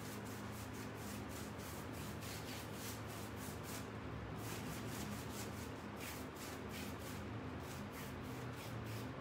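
Paintbrush scrubbing and dabbing wet paint into the side of a wooden cabinet: a run of quick, short rubbing strokes that pauses briefly about four seconds in.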